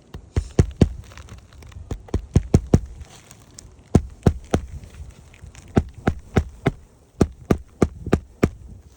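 Hammer driving nails, struck in quick runs of three to five sharp blows with short pauses between runs, as in hand-nailing roofing shingles.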